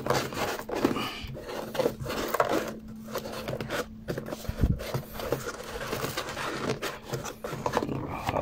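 Hands rubbing, scraping and handling a cardboard shipping box, with irregular scrapes and small knocks and a dull bump about halfway through.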